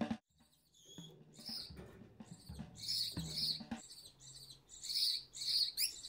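Gouldian finch calling: a run of short, high chirps, coming in small clusters.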